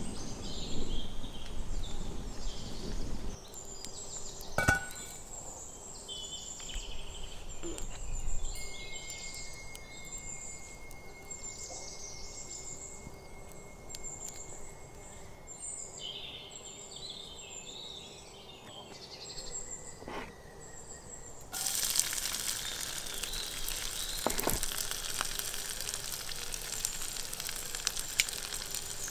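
Birds chirping for the first part. About three-quarters of the way through, a sizzle starts suddenly and keeps going: chopped garlic frying in hot oil in a cast-iron skillet over a wood fire.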